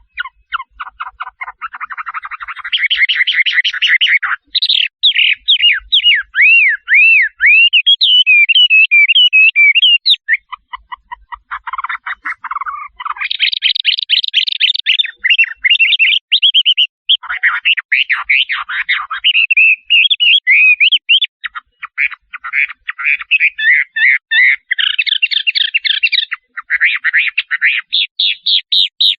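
Shrike singing a long, loud, varied song: rapid chattering and pulsed runs alternating with swooping whistled notes, phrase after phrase with only short breaks.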